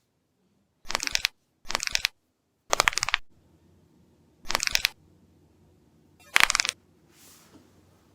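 Finger knuckles cracking: five short bursts of rapid pops, each about half a second long, a second or two apart.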